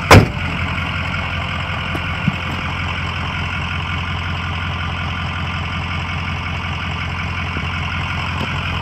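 The hood of a 2004 Ford E-450 box truck slammed shut right at the start, with one loud bang. Its 6.0-litre Power Stroke V8 diesel then idles steadily. The engine is warm after about an hour of running and sounds healthy.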